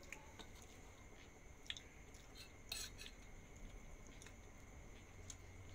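Faint, scattered clicks of wooden chopsticks against a bowl while picking food out of soup, the two clearest about a second and a half and nearly three seconds in.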